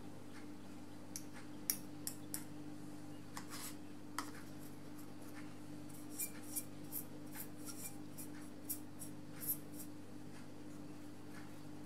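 Watercolour brush dabbing and tapping on paper and the plastic paint tray: a scattered series of small, sharp clicks and taps over a steady low hum.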